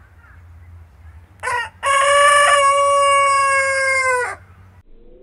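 A rooster crows once: a short opening note about a second and a half in, then one long held note of about two and a half seconds that drops a little at the end.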